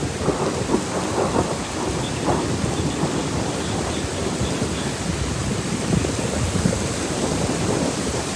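Severe thunderstorm: heavy rain with gusty wind, a steady rush of noise with uneven low rumbling.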